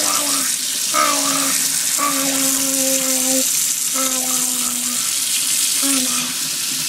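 Water from a kitchen faucet running steadily into a stainless-steel sink, splashing around a Lego model. Over it a voice makes long held sounds, four times, the longest lasting over a second.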